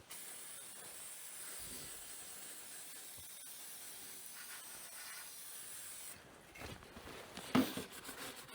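A pressurized spray hissing steadily for about six seconds, then stopping. A few light clicks and knocks follow, with one louder knock near the end.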